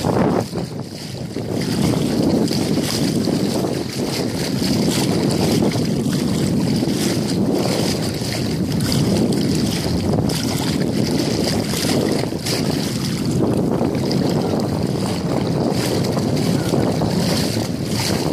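Wind buffeting a phone's microphone: a loud, steady rushing noise that swells and eases.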